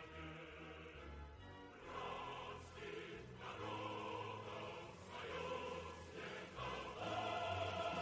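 Background music: a choir singing slow sustained chords over a low bass line.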